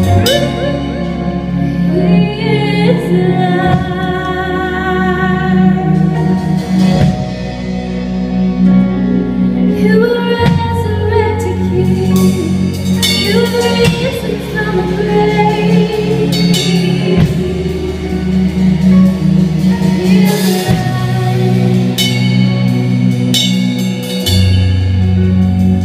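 Live worship band playing: a woman singing lead over electric guitar and a drum kit, with low sustained bass notes that change every few seconds.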